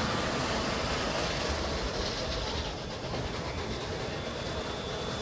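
Narrow-gauge steam train with open passenger cars, pulled by a Lima-built Shay locomotive, rolling steadily along the track, heard from aboard: an even rumble of wheels on rails.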